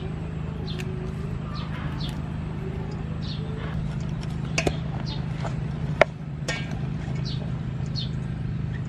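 Birds chirping with short, falling calls again and again over a steady low hum, while shredded vegetables are tossed by hand in a stainless steel bowl. A spoon knocks sharply against the bowl once, about six seconds in.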